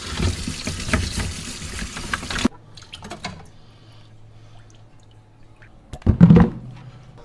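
Tap water running into a stainless-steel sink while a scrub brush scrapes over a live lobster's shell, cutting off suddenly about two and a half seconds in. Near the end, a loud thump as the lobster is set down on a plastic cutting board.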